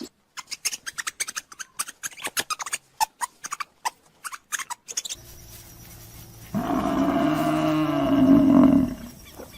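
A quick, irregular run of sharp clicks and taps for about five seconds, then a large animal's roar: one long, loud pitched call of about two and a half seconds that cuts off abruptly.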